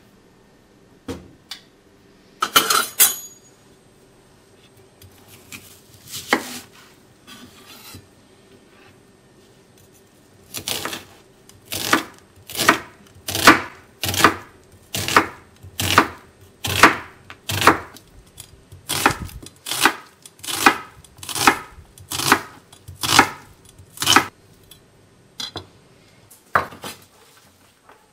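Chef's knife slicing an onion on a wooden cutting board: a steady run of crisp cuts, each ending in a knock on the board, about one every three-quarters of a second from about ten seconds in until near the end. A few scattered knocks and a short rustling clatter come earlier.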